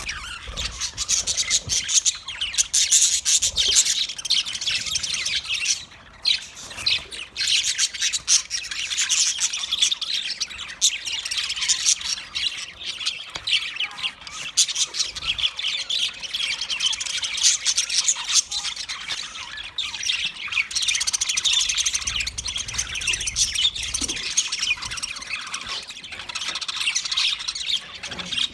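Budgerigars chirping and squawking continuously in dense, overlapping chatter, with a brief lull about six seconds in.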